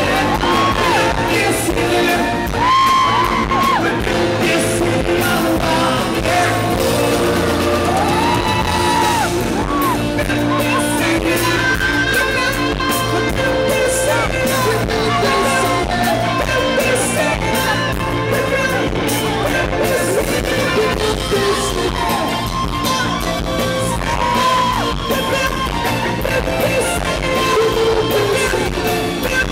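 Live rock band playing with a male lead singer singing into a microphone, with some yells.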